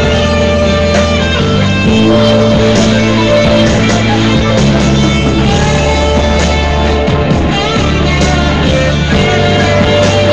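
Rock-style guitar jam: guitar playing over held low notes that change every second or two, with sharp picked or struck accents throughout.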